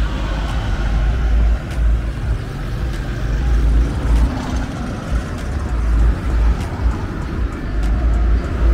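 Roadside traffic: motor vehicles running and passing, over a heavy, uneven low rumble.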